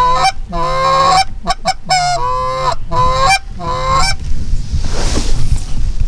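Short-reed Canada goose call blown by a hunter: a string of about six drawn-out honks, each breaking from a low note up to a higher one, calling to geese over the decoys. The calling stops about four seconds in, leaving a rough rustling noise.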